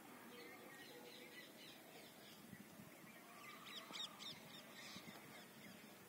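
Near silence: faint outdoor ambience with birds calling, a quick cluster of short chirps about four seconds in.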